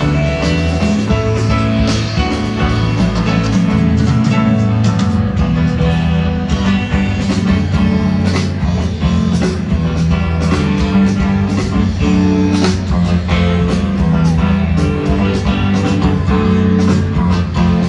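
Live rock band playing an instrumental passage with electric guitar, bass, drums and keyboards, heard from among the audience.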